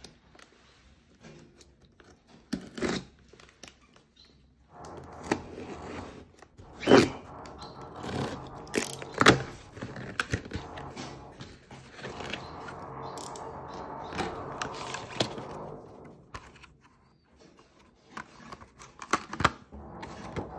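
Parcel being unboxed: a utility knife slitting packing tape, cardboard flaps scraping and knocking as they are pulled open, with the sharpest knocks about 7 and 9 seconds in, then a clear plastic clamshell tray crackling near the end.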